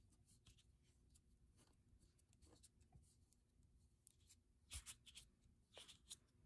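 Faint rubbing of fingertips smearing oil pastel across drawing paper, with a few short, louder strokes about five and six seconds in.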